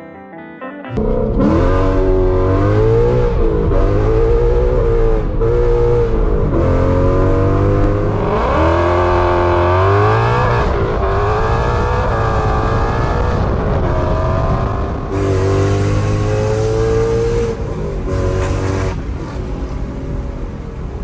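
2016 Ford Mustang GT's 5.0 Coyote V8, fitted with Kooks headers and a Corsa Extreme catback exhaust, revving and accelerating loudly, its pitch climbing and dropping again and again. It starts suddenly about a second in and comes in several short cuts.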